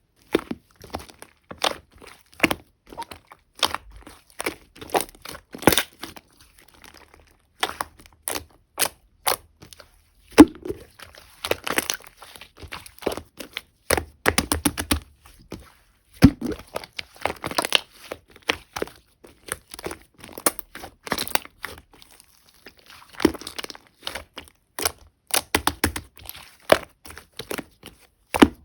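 Slime (a mix of soft pink and yellow slime with clay toppings worked in) being pressed, stretched and folded by hand, giving a dense run of sharp irregular clicks and crackles as trapped air pops, with a few brief pauses.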